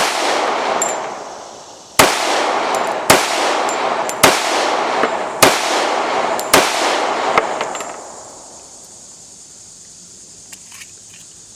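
Six .45 ACP shots from a 1911 Commander pistol with a ported Schuemann barrel, fired at a steady pace of about one a second. Each shot is followed by a long echo. The firing stops about two-thirds of the way in.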